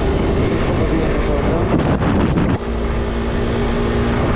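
125 cc single-cylinder KTM motorcycle engine running under way, heard through heavy wind noise on the microphone. About halfway through the loudness dips briefly, then the engine holds a steady note.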